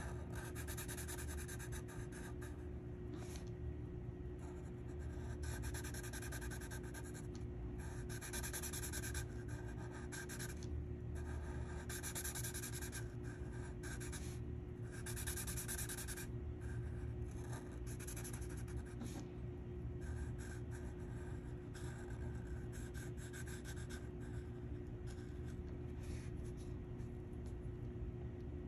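Black felt-tip marker rubbing across paper in repeated strokes of about a second each with short gaps, colouring in an area, over a steady low hum.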